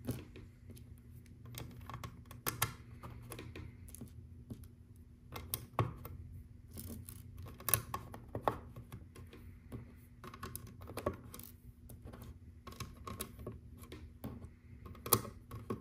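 Small plastic LEGO round tiles clicking and rattling as they are sorted from a loose pile and pressed onto a studded baseplate: irregular short clicks, with a sharper click near the end.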